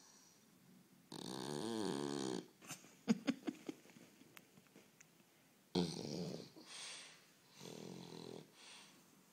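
A dog snoring in its sleep. One long, loud snore comes about a second in, then a few sharp clicks a second later, then a run of shorter snores, each under a second, through the second half.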